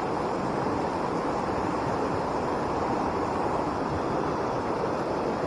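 Steady rushing of a fast mountain trout stream.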